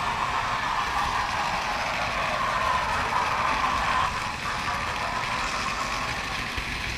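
Model railway wagon wheels rolling along the track, a steady mechanical rolling noise heard from on board the moving train, dipping slightly about four seconds in.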